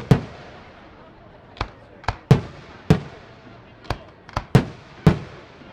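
Aerial firework shells bursting in the sky: about nine sharp bangs at irregular intervals, several close together, each trailing off in a short echo.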